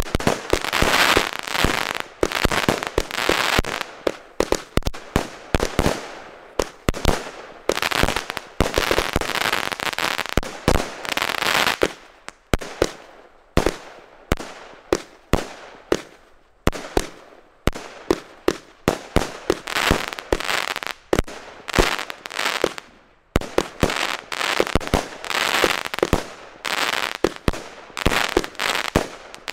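Klasek Signature Range 196-shot, 20 mm compound firework cake firing shot after shot, several a second, with stretches where the bursts run together into a continuous crackle.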